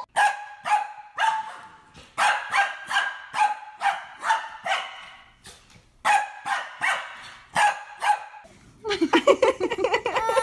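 Small white fluffy dog barking in sharp, high yaps, two or three a second in runs broken by short pauses. About nine seconds in, a baby cries with a wavering pitch.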